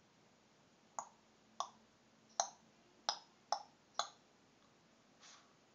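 Pet bird making a series of six sharp clicks at uneven spacing, about half a second to a second apart, followed by a softer, breathier sound near the end.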